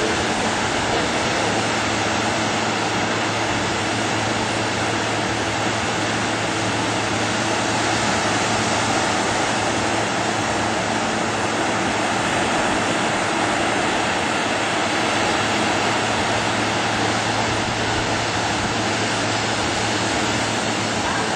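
Steady wash of small surf breaking along a sandy beach, an even continuous roar of water without separate events.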